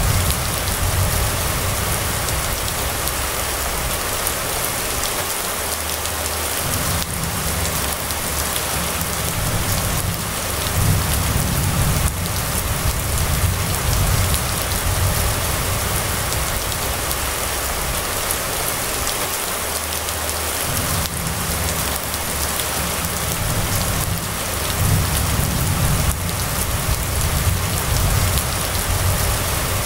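Steady rain falling on a wet street: a dense, even hiss, with low rumbles swelling and fading underneath several times.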